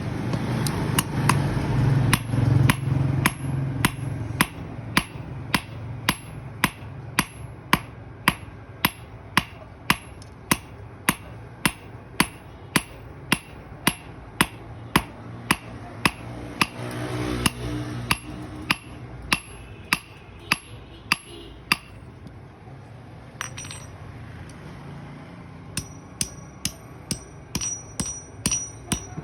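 Blacksmith's hand hammer striking steel on an anvil while forging a sickle: steady, evenly spaced ringing blows a little under two a second. After a pause of a few seconds, quicker and lighter taps follow near the end.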